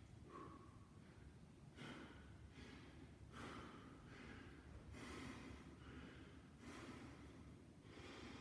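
A man breathing hard with the effort of sit-ups: faint, quick breaths in and out, roughly one a second.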